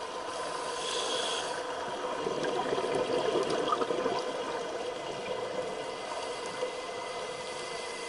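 Underwater ambience: a steady wash of water noise with a faint constant hum, swelling a little in the middle.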